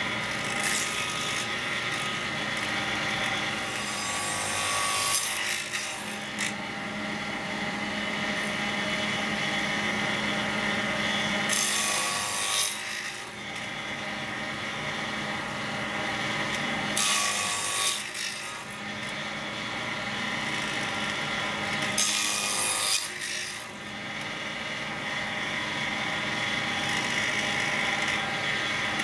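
Table saw running steadily while a board on a crosscut sled is pushed through the spinning blade about five times. Each cut lasts about a second and is noisier and louder than the steady motor.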